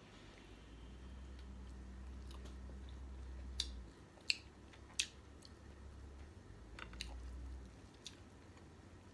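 Crisp leafy greens crackling a few times as they are torn and folded around a bite of steamed fish, over a low rumble that stops a little before the end.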